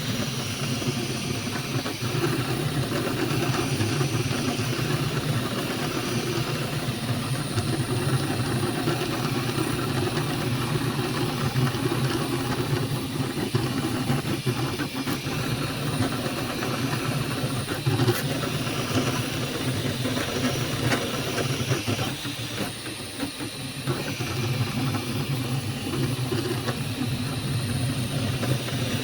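Flashforge Adventurer 5M 3D printer running mid-print: a steady whir of cooling fans and motors with a high hiss, easing briefly about two-thirds of the way through.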